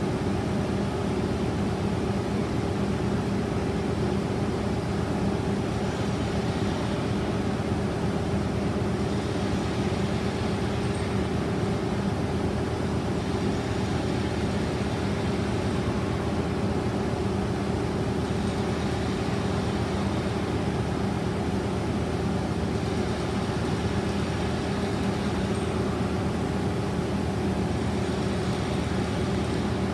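CKD Blansko twin-column vertical lathe running under power: a steady electric-motor and drive hum with constant low tones, unchanging throughout.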